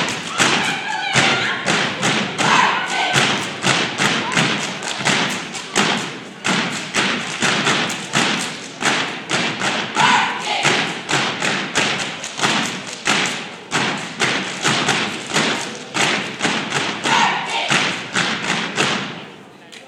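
A step team stepping: fast, rhythmic stomps and claps struck together by a group of dancers, with a few short shouted calls, stopping just before the end.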